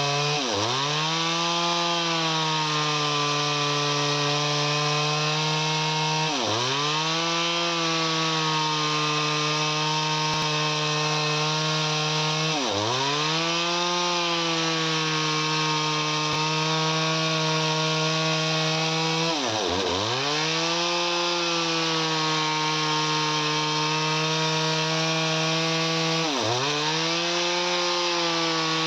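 Chainsaw engine running at high speed while cutting wood. Its pitch dips sharply and climbs back about every six or seven seconds, five times in all.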